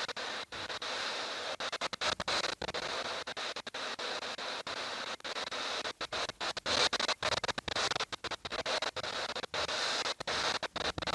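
Strong wind buffeting the microphone in a dust storm: a rough, crackling hiss broken by many brief cut-outs.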